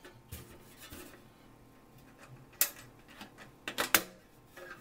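Metal latches on an old steel socket-set case clicking as they are worked, with light handling of the case: a sharp click about two and a half seconds in and a quick run of clicks near four seconds, the loudest.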